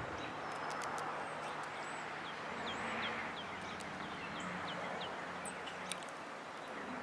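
A songbird calling a run of about eight short, falling chirps over some three seconds, over a steady outdoor background hiss.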